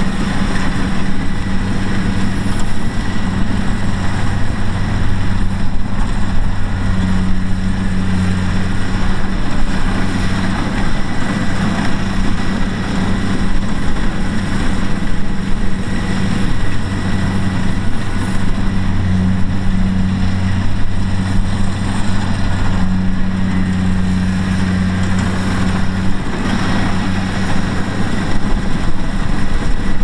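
Kubota DC-70 Plus combine harvester running steadily as it cuts rice: its diesel engine and harvesting machinery make a loud, even, low hum.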